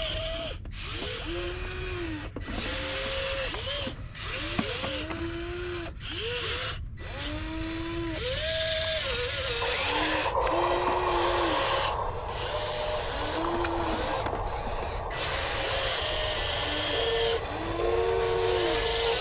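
Electric motors of a scale RC Volvo EC160E excavator whining in short runs as the boom, arm and bucket move. Each run rises in pitch, holds and falls away. Under the whines is a gritty gear buzz that starts and stops sharply with each movement.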